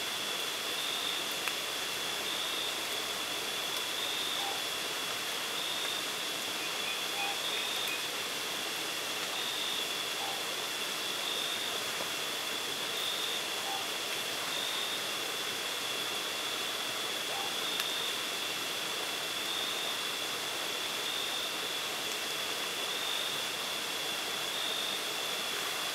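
A steady, high-pitched insect drone at night, with a faint regular beat about every second and a half, over a constant hiss. Very faint short notes come every few seconds.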